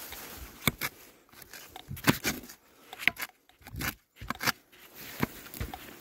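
A spade cutting and scraping into dry grass and soil: a series of irregular crunching strokes and knocks.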